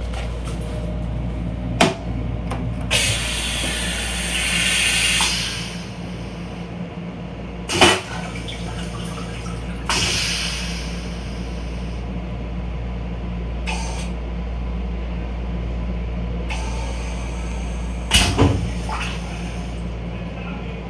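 Toilet on an M7 commuter railcar flushing, with a rush of water into the stainless-steel bowl for about three seconds, then a second shorter rush about ten seconds in. A few sharp clacks fall between them and near the end, over the railcar's steady low hum.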